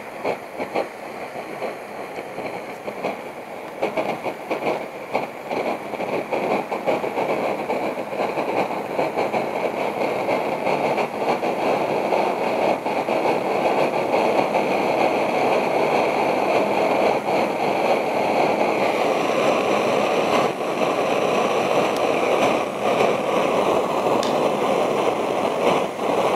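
Copper coil alcohol jet stove burning under a pan of water that is nearing the boil: a steady rushing, crackling noise of the burner and the heating water. It grows louder over the first ten seconds or so, then holds.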